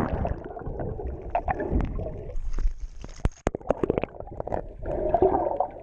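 Seawater gurgling and sloshing right against the microphone, as of a camera held at or under the surface, with scattered sharp knocks.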